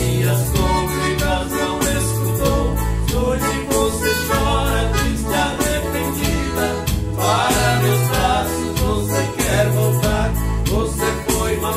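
Instrumental passage of a Brazilian sertanejo song played live on an arranger keyboard, nylon-string acoustic guitar and piano accordion, over a steady, repeating bass pattern.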